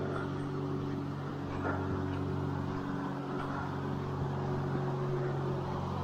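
A steady low motor hum over a constant rushing background, unchanging throughout, with a few faint ticks.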